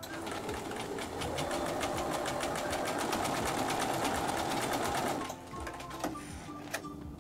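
Bernina sewing machine stitching a seam at speed: rapid, even needle clicks over a motor hum that builds during the first second. The stitching stops about five seconds in.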